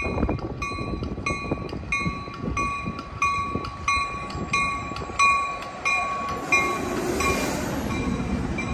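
Bell of an arriving Caltrain commuter train ringing steadily, about three strikes every two seconds, over the low rumble of the train. The ringing stops about six and a half seconds in and a hiss rises as the train comes alongside.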